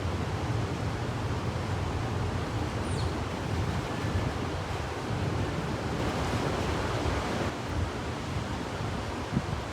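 Storm wind buffeting the microphone: a steady low rumble under a rushing hiss, with a stronger gust about six seconds in.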